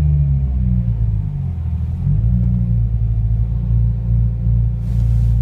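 2015 Subaru WRX creeping forward in first gear at full right steering lock, giving a loud, low, pulsing rumble with popping from the car. This popping during the tight turn is the fault the owner is showing on a new car.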